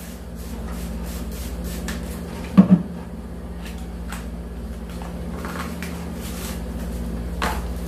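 Handling noises at a table: small clicks and rustles as a cardboard product box is turned and opened, with a loud hard knock about two and a half seconds in and a smaller knock near the end. A steady low hum runs underneath.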